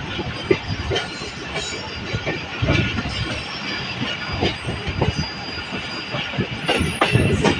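Pakistan Railways passenger train running at speed, heard from beside the coach: a steady rumble of the wheels with irregular clatter and knocks over the rail joints, and a brief high squeal near the end.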